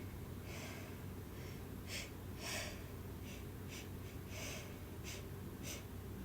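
A person taking a string of short, sharp gasping breaths and sniffs, about nine in six seconds, the strongest about two and a half seconds in: the hitching build-up to a sneeze.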